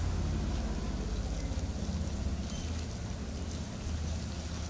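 A low steady rumble, with a grainy patter and scraping as a wooden stick stirs dry sesame-and-flour mix in an aluminium basin while thick jaggery syrup is poured in.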